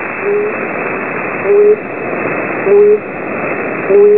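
Shortwave numbers station signal heard through radio static: four short low beeps, each rising slightly in pitch, about every 1.2 seconds, over a steady hiss.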